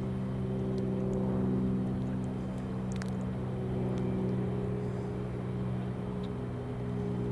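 Steady low engine hum, holding one even pitch throughout, with a few faint clicks.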